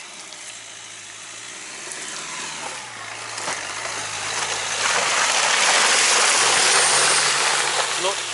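Dacia Duster driving up a muddy rutted slope, its engine running under load. A hiss rises as it comes close and is loudest about five to seven seconds in.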